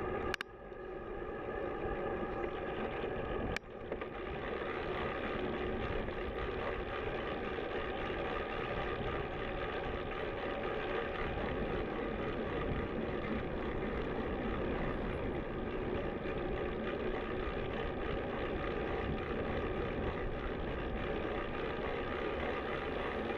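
Steady riding noise from a moving recumbent cycle: an even drone with rumble on the microphone, and two short clicks in the first four seconds.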